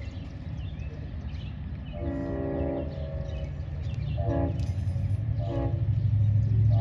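Horn of lead freight locomotive CSX 3194 sounding for grade crossings: one blast about two seconds in, two short blasts later, and another starting at the end. Under the horn, the low rumble of the approaching diesel locomotives grows steadily louder.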